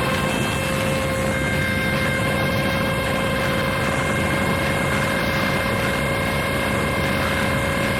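Noise music: a dense, unbroken wall of rumbling noise with several high electronic tones held steadily over it, one more tone joining about two seconds in.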